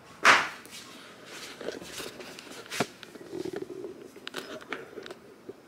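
A short breathy burst, then faint rustling and a few light clicks as fingers trace letters on another person's hand.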